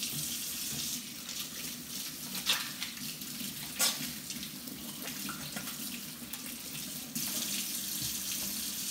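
Kitchen faucet running steadily into a stainless steel sink, the stream splashing over hands held under it. Two sharp knocks come a few seconds in, and the flow gets louder about seven seconds in.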